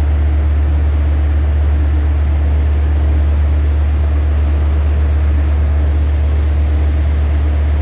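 Long Island Rail Road diesel locomotive running steadily with a loud, unchanging low drone.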